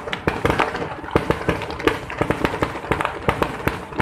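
Aerial fireworks bursting in quick succession: a dense run of sharp bangs and crackles, several a second.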